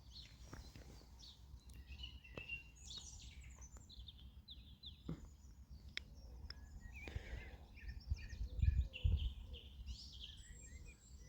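Small birds chirping and singing over a low rumble that swells briefly just before nine seconds in.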